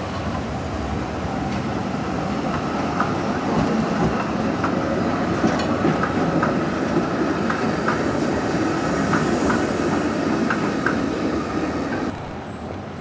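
Green Basel BVB tram with a trailer car rolling past close by: a steady rumble of steel wheels on street track, with a string of short, sharp ticks from the wheels and rails. Near the end the sound drops abruptly to quieter street noise.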